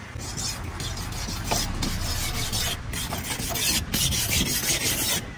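A blade scraping over a fish in repeated rasping strokes, with brief breaks about once a second.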